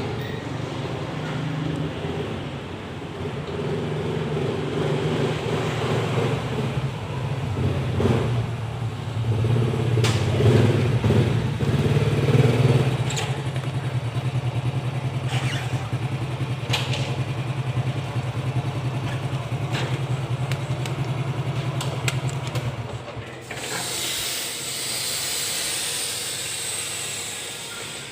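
A motor running steadily, with a few clicks and knocks over it, stops about 23 seconds in, and a steady hiss follows.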